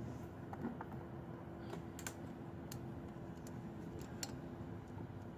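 Scattered light metallic clicks and taps of hand tools and small clamp hardware being handled during reassembly, over a steady low hum.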